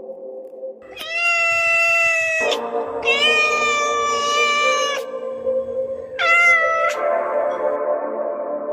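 A domestic cat meowing three times: two long, drawn-out meows and a shorter one near the end, over steady background music.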